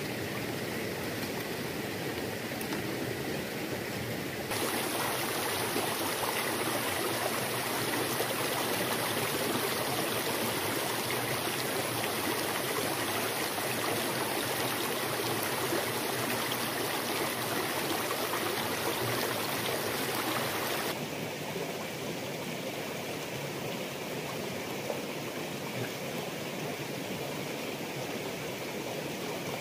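Shallow river running over rocks, a steady rushing babble of water. It grows louder and brighter from about four seconds in, then drops back about two-thirds of the way through.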